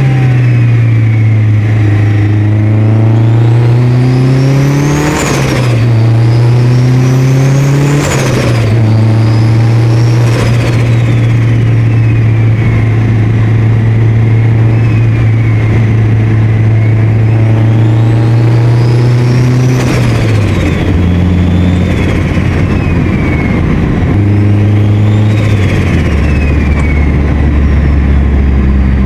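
Turbocharged 4G63 four-cylinder of a Mitsubishi Lancer Evolution pulling hard through several gears. A turbo whistle climbs with each pull, then falls away each time the throttle is lifted, with a short burst of noise at each lift. With the blow-off valve deleted, those lifts bring compressor-surge flutter.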